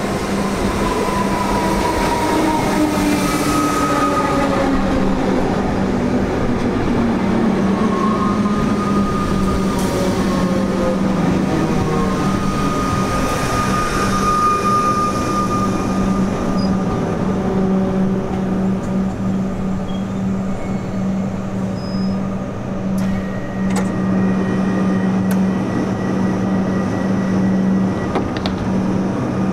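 Comeng electric suburban train pulling into a station: a whine that falls in pitch as it slows over the first dozen seconds, then a steady low hum while it stands at the platform, with a few clicks and a faint high tone near the end.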